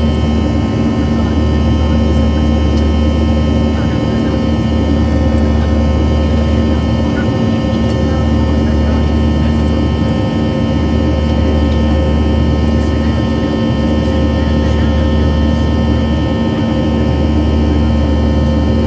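Boeing 737-700's CFM56-7B jet engines droning steadily, a loud low rumble with several steady tones over it.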